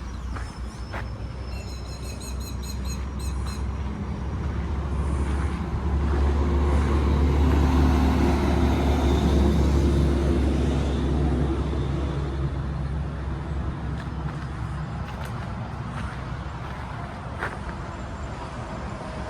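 A motor vehicle passing on a nearby road: a low engine hum that builds over several seconds, peaks about halfway through, then fades away. A short run of rapid high chirps sounds about two seconds in.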